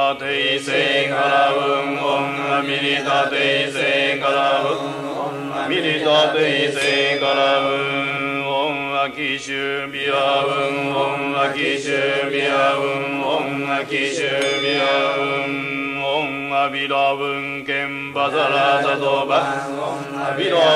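Japanese Shingon Buddhist chanting of sutras and mantras, recited without pause in a steady monotone.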